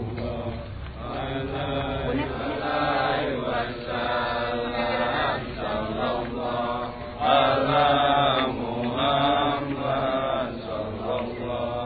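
Voices chanting a slow, drawn-out melodic Muslim devotional chant, growing louder about seven seconds in.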